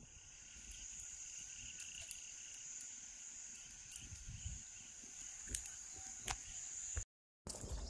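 Insects shrilling steadily in one continuous high-pitched drone, with a few faint sharp clicks about five and a half and six seconds in. All sound briefly cuts out near the end.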